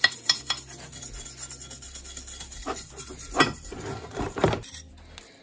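Small fine-bristled brush scrubbing gel paint stripper and softened paint off the metal housing of a 1958 Black & Decker drill, in a series of rough rubbing strokes. The strokes are loudest between about two and a half and four and a half seconds in, then stop.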